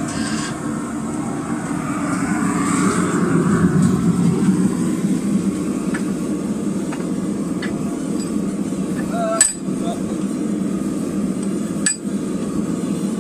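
Gas forge burner running steadily with a low rushing noise. Two sharp metal-on-metal clinks, one about nine and a half seconds in and one near the end.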